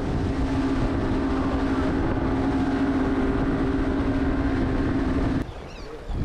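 Boat engine running steadily at speed, with the rush of wind and water as the hull moves across the sea: a constant droning hum. It cuts off suddenly a little over five seconds in, leaving only faint water and wind.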